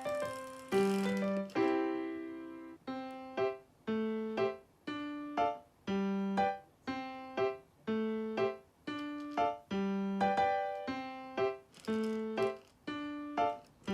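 Background music: a plinking piano or electric-piano melody, notes struck about twice a second, each fading away.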